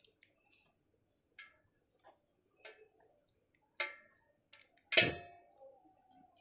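Small hard pieces clinking into a stainless-steel bowl as pond snails are shelled with a safety pin. There are five sharp clinks at uneven intervals, each with a short metallic ring. The loudest comes about five seconds in and rings on for over a second.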